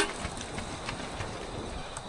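Strong wind blowing, a steady, even rushing noise, just after a sharp knock fades out at the very start.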